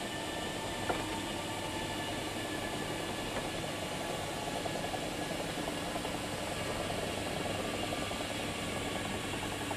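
Electric rack-railway train of the Tramway du Mont-Blanc passing slowly close by: a steady whine of its drive over a rumbling running noise, with a sharp click about a second in and light regular ticks in the second half.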